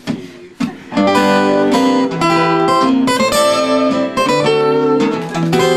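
Two acoustic guitars start a song about a second in, playing chords together.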